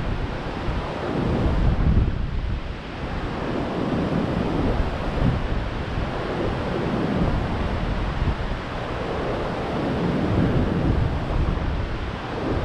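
Rough Gulf surf breaking and washing up a sandy beach in a continuous, surging roar, the swell stirred up by a tropical storm offshore. Gusting wind buffets the microphone with a low rumble.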